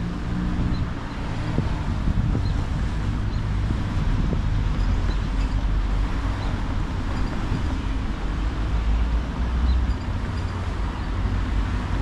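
Road traffic: cars and a van driving over a railroad grade crossing, a steady rumble of engines and tyres.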